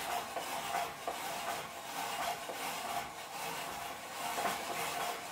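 Vegetable spiralizer being turned by hand, its blade cutting a raw vegetable into thin strands with a steady cutting noise.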